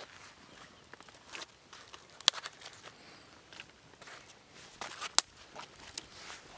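Dry twigs being handled and laid onto a small campfire: rustling and scraping of sticks, with a few sharp cracks, the loudest about two seconds and about five seconds in.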